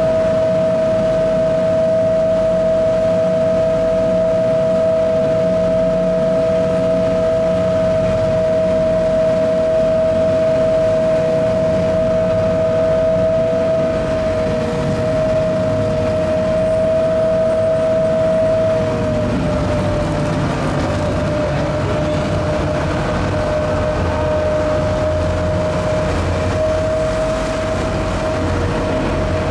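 Canal tour boat's engine running with a steady drone of two held tones over a low rumble; the tones shift slightly in pitch about two-thirds of the way through.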